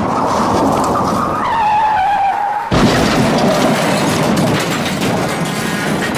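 Car tyres skidding with a loud screech, cut off by a sudden crash nearly three seconds in. Dense, continuing crash noise follows.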